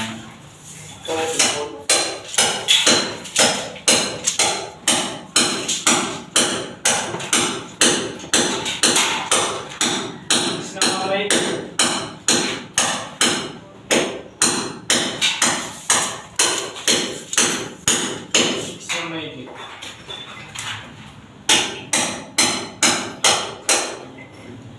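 A hammer striking in a steady rhythm of about two blows a second. The blows pause for a couple of seconds near the end, then resume.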